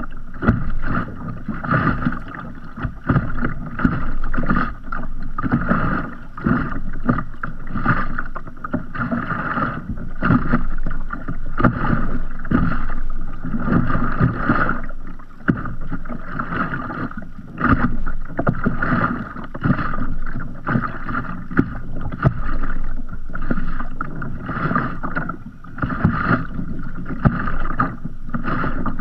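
Small sea ripples lapping and slapping against a kayak's hull close to the microphone: an irregular run of small splashes and knocks that swells and eases.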